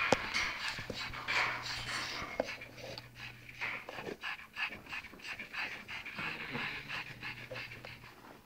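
Pekingese dog panting, a quick, even run of short breaths through its open mouth.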